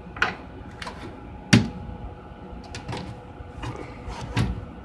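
Hands working an oscilloscope's plug-in modules and cover: a series of sharp clicks and knocks of metal and plastic, about five in all, the loudest about one and a half seconds in.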